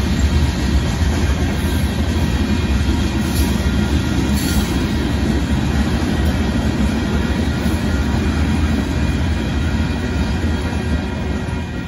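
Freight cars of a Union Pacific limestone train rolling past at a grade crossing: a steady, heavy rumble of steel wheels on rail with clickety-clack, easing slightly near the end.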